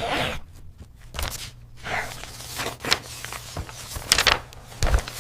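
Several sharp knocks and short rustling noises, spaced irregularly, over a faint steady low hum.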